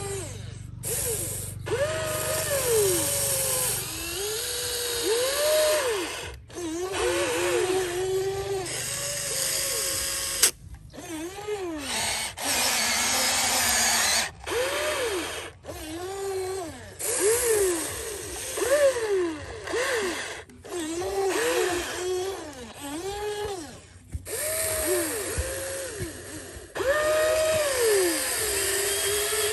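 Electric motors of a Huina radio-controlled excavator whining, the pitch rising and falling over and over as the controls are worked. The sound cuts out suddenly several times.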